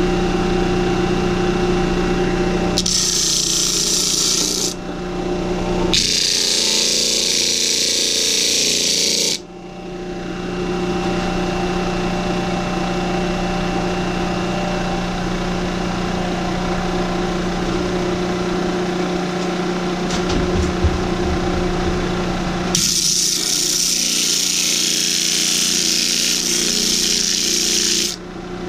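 Harbor Freight 12-inch disc sander's electric motor running with a steady hum, broken three times by a loud, scratchy hiss as a block of wood is pressed against the spinning sanding disc: twice in the first ten seconds and once for about five seconds near the end.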